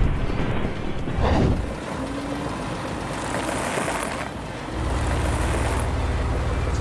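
Tempered glass crunching and crackling under a heavy truck's tyres, with a sharp crack about a second in. In the second half the truck's diesel engine runs with a low, even rumble.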